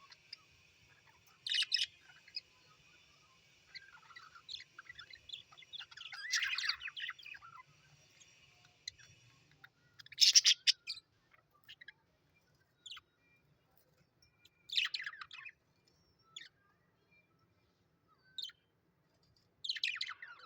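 Australian birds calling in short bursts of chirps about every four to five seconds, the loudest at about ten seconds in. A steady high background of several held tones runs underneath until about halfway, then stops.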